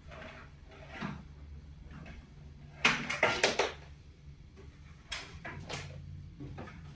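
Handling noise from things being moved about off camera: a quick run of knocks and rustles about three seconds in, and a couple more about five seconds in.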